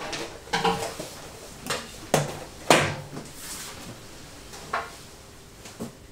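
Nail supplies and a plastic UV nail lamp being handled and set down on a table: a series of separate knocks and clatters, the loudest about two and a half seconds in.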